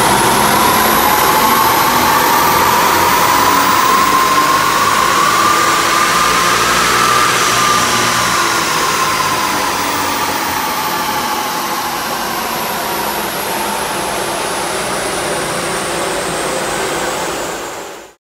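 Audi A5 3.0 TDI V6 turbodiesel on a chassis dyno, running a power run through the rev range and then running down. A whine climbs in pitch over the first seven seconds or so, then falls away. The sound cuts off suddenly near the end.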